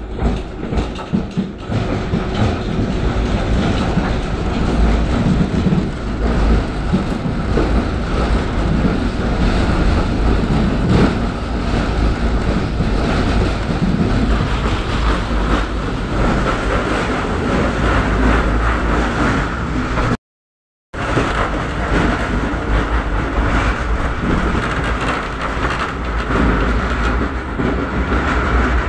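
Tatra T3 tram heard from inside the car as it runs along the track: a steady rumble of wheels on rail and running gear, with a steady higher whine above it. The sound cuts out for under a second about twenty seconds in.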